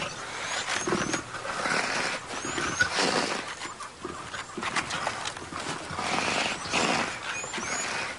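Lions growling over a scavenged carcass, in several rough, drawn-out bouts that swell and fade.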